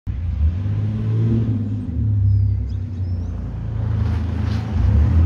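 Chevy S10 pickup's 4.3 Vortec V6 running with no muffler, a loud, deep exhaust whose pitch and loudness rise and fall as the truck drives in.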